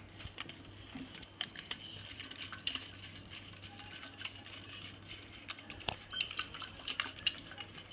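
A plastic straw stirring baking soda into water inside a plastic soda bottle, clicking and tapping irregularly against the bottle's neck and sides.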